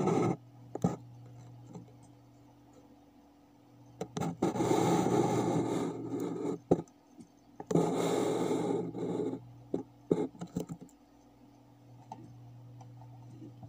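Scraping and rubbing noise from the recording phone being handled, in two stretches of about two seconds each, with scattered clicks, over a low steady hum.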